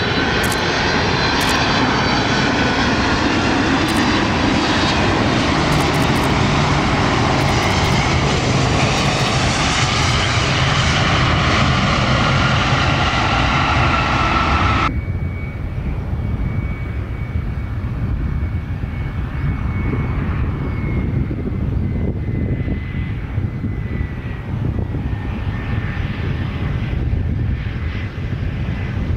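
Airplane engines running loud, with several whining tones that slowly fall in pitch. About halfway through, the sound cuts off abruptly to quieter engine noise with one high whine that slowly drops.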